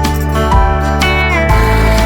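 Background music led by guitar, with one note bending upward; about one and a half seconds in it turns into a denser, heavier passage.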